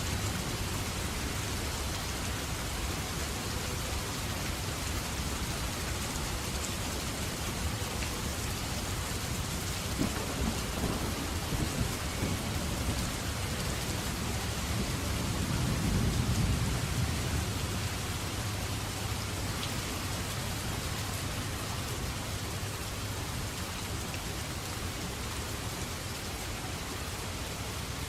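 Steady rain falling, with a low rumble of thunder that swells about halfway through and slowly fades away.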